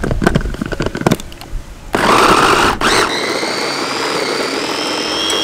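Electric food chopper with a stainless-steel bowl: a few light knocks, then about two seconds in the motor starts and runs, its blades chopping garlic and fish, with a high whine that rises slightly in pitch.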